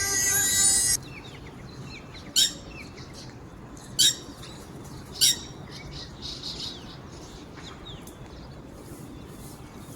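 Birds calling: three loud, short, sharp calls about a second and a half apart, with small birds chirping faintly between them. Background music cuts off abruptly about a second in.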